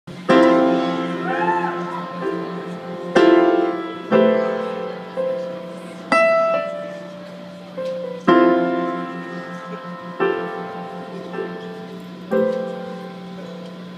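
Solo piano playing a slow introduction: seven chords struck about every two seconds, each left to ring and fade.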